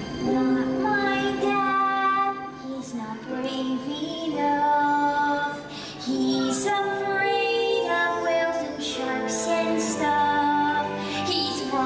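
Music with a high, female-sounding voice singing held notes in several phrases.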